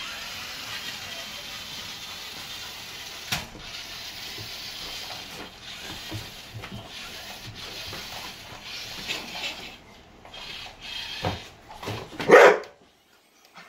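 A pitbull barks once, loudly, near the end, at a remote-control toy backhoe. Before the bark the toy's small motor and gears whir steadily, with a few sharp knocks.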